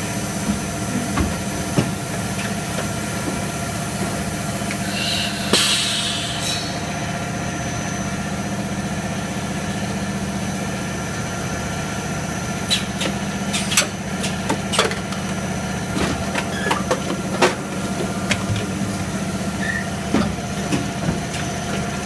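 Double-station HDPE extrusion blow moulding machine running: a steady hum with held tones, a burst of hiss about five seconds in, and a run of sharp clicks and knocks from about twelve seconds on.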